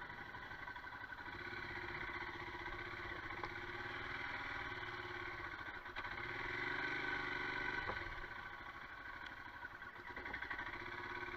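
Royal Enfield Himalayan's single-cylinder engine running at low revs as the bike climbs a slippery grassy track. It gets louder for a couple of seconds about six seconds in, then eases off, with a few small knocks from the bike over the rough ground.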